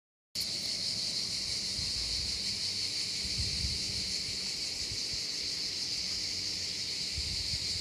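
Steady, unbroken chorus of insects at dusk in the countryside, a high shrill drone that begins abruptly just after the start.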